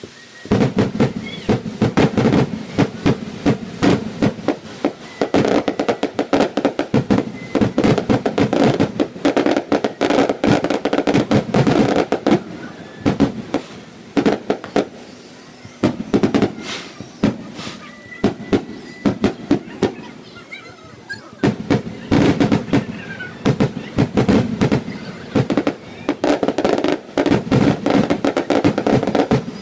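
Aerial fireworks display: shells bursting in quick succession with sharp bangs and crackling, thinning out for a few seconds around the middle and again a little later before building up once more near the end.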